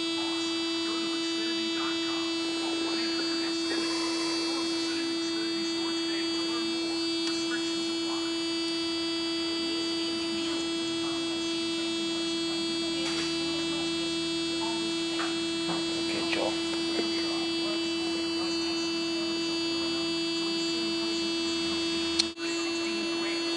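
Steady electrical hum with a ladder of high, whiny overtones, holding one pitch throughout, with a few faint clicks. A sharp click and a brief dropout come near the end.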